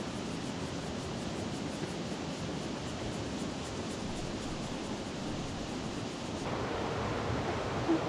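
Fast-flowing river water rushing steadily, a current too strong to wade across. It gets a little louder and brighter about six and a half seconds in.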